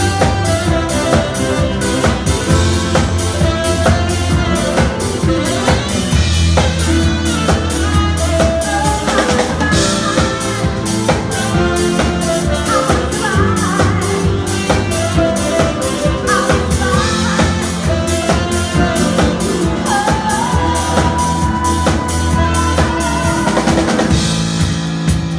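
A live band playing an upbeat song: a drum kit keeps a steady beat over a bass line, with a melody line on top that holds one long note about two-thirds of the way through.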